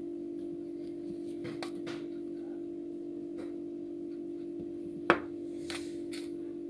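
Hands handling a cardboard cream box and a soft metal cream tube on a table: a few light taps and rustles, with one sharp knock about five seconds in, the loudest sound, and two softer ones after it. A steady low hum runs underneath.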